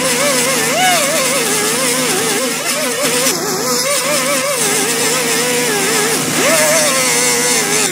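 RustBusters zinc arc spray welder spraying metal: a loud, steady hiss with a pitched tone that wavers up and down over it.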